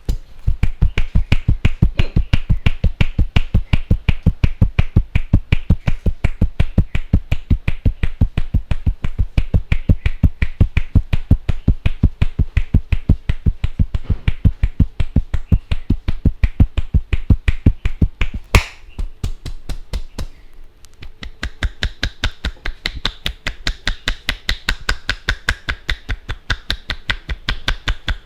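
Barber's hands striking a head in fast percussive Indian head massage (champi), an even patter of slaps at about five a second. One harder strike about two-thirds through, after which the strikes turn lighter and sharper.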